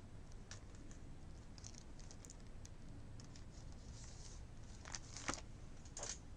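Faint scratching and a few small clicks of a trading card and a plastic card holder being handled, with sharper clicks about five and six seconds in, as the card is tried in the holder.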